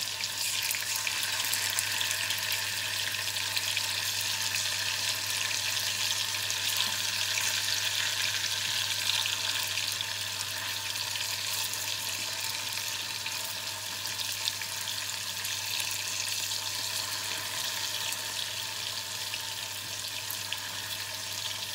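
Tofu cubes shallow-frying in hot oil in a small pan: a steady sizzle with fine crackling as the pieces are turned with chopsticks.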